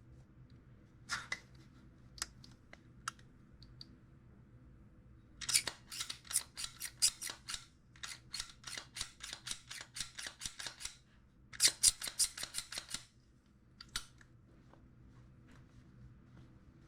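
Small sharp clicks from handling a Glock 19 Gen 6 pistol. A few scattered clicks come first, then two fast runs of clicking lasting several seconds, and a last single click.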